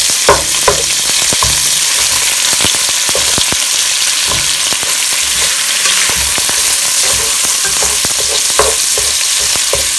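Ground pork frying in hot oil with garlic and ginger, a steady sizzle, with scattered clicks and scrapes of a utensil against the pot.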